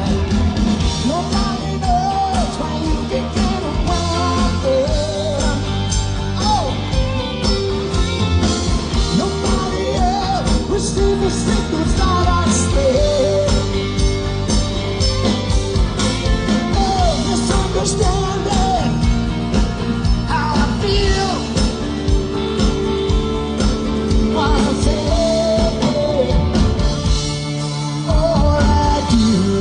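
Live rock band playing a loud stretch without lyrics: a wavering lead melody over drums and bass, the bass dropping out briefly just before the end.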